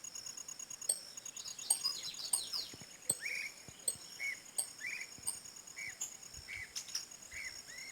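Birds calling over a steady insect trill: a quick flurry of high chirps, then one bird repeating a short chirp about every half second.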